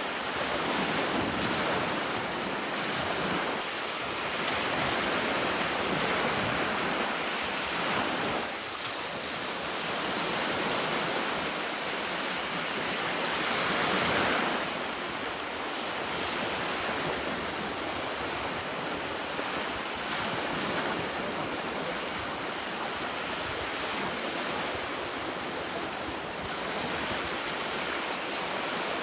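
Sea waves breaking and washing on a shore in a continuous surf, swelling and easing every few seconds, with wind noise.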